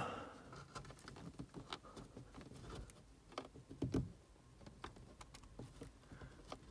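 Faint small clicks and taps of fingers working an LED bulb into the metal contact clips of a car's plastic front dome light, with a slightly louder knock about four seconds in.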